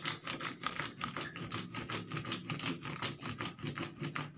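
A rolling pin pressed and rubbed over newspaper, crushing a charred roasted clove into powder, with rapid, uneven scraping and crunching strokes.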